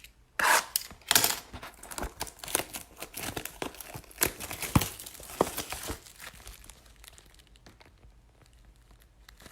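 Plastic wrapping being torn and crinkled off a trading-card box: a quick run of crackles for about six seconds, then quieter handling.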